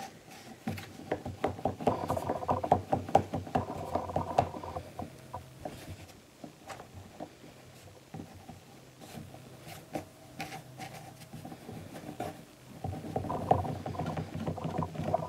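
Hands rolling a coil of air-drying clay back and forth on a wooden tabletop: a quick rubbing patter of palms on clay and wood. It runs from about a second in to about four and a half seconds, drops to a few light taps in the middle, and picks up again near the end.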